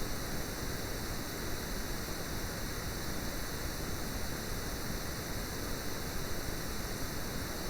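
Steady low background hiss with no distinct sounds, the noise floor of the recording.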